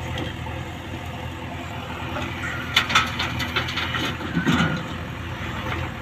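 JCB 3DX backhoe loader's diesel engine running steadily under hydraulic work as it swings a full bucket of soil over a tractor trolley. Around the middle come a series of sharp metal clanks and knocks from the backhoe arm and bucket.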